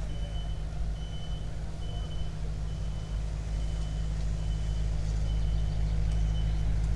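A vehicle's reversing alarm beeping steadily, one high beep a little more often than once a second, over a steady low rumble.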